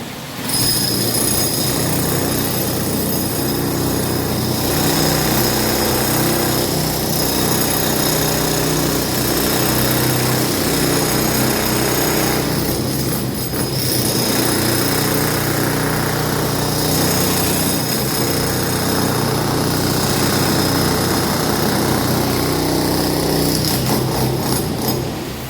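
Power tool cutting or breaking reinforced concrete, running continuously with a steady high whine over a rough, grinding noise, easing off briefly about halfway through.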